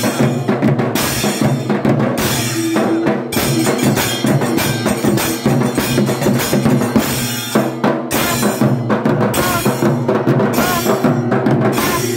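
Kailaya vathiyam temple ensemble: large barrel drums beaten with sticks and brass hand cymbals clashing in a driving, unbroken rhythm, over a steady droning tone.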